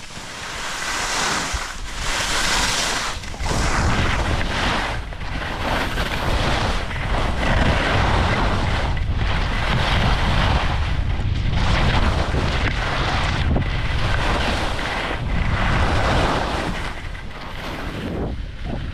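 Skis scraping and hissing over groomed snow, swelling and fading every second or two with the turns, while wind buffets the body-worn camera's microphone with a heavy rumble from a few seconds in as the skier gathers speed.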